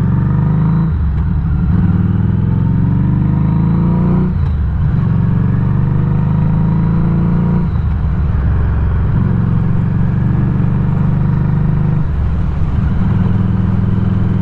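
Harley-Davidson Street 500 V-twin engine running under way, its note climbing and then briefly dropping away at gear changes about every three to four seconds.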